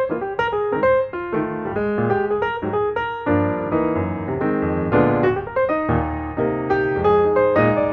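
Background piano music: a melody of quick notes over chords, at a steady pace.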